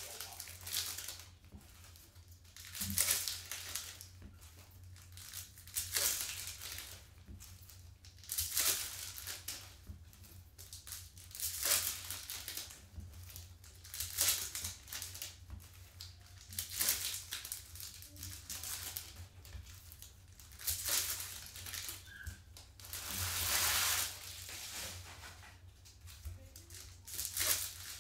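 Trading-card pack wrappers being ripped open and crumpled one after another, a crinkly tearing rip every two to three seconds.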